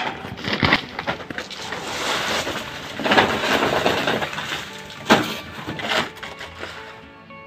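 Loose potting soil being shaken out of a crinkling plastic sack onto a pile, in several bursts with the longest about three seconds in, then a plastic scoop scraping and knocking into the soil near the end.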